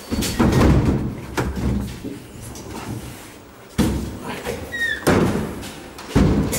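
Wooden wardrobe being carried through a doorway, thudding and knocking several times against the door and frame. A short squeak comes near the end.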